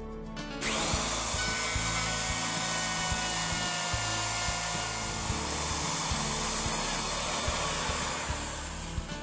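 Electric router running and cutting a shallow lock mortise into a wooden door edge. It starts suddenly about half a second in and eases off near the end.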